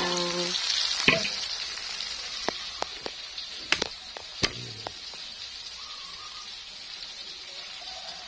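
Spice paste and salted fish sizzling in hot oil in a wok, with a few sharp clicks in the first five seconds; the sizzle fades gradually.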